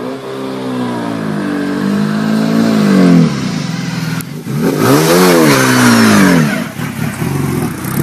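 Classic Mini's 1380 A-series four-cylinder engine revving hard up a steep hill. The pitch climbs and drops several times through the gears, and the engine is loudest from about five seconds in as the car comes past close by.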